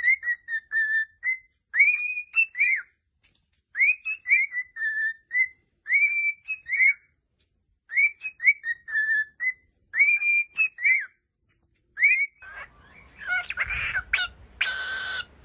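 Cockatiel whistling a short tune, the same phrase of rising and falling notes repeated about every two seconds. Near the end the sound changes to a harsher, rougher cockatiel call over background hiss.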